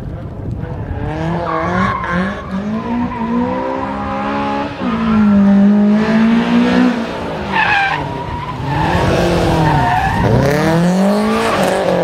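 Honda Civic hatchback's four-cylinder engine revving hard, its pitch climbing and dropping again and again as the car is thrown through tight turns, with tyres squealing and skidding on asphalt at times.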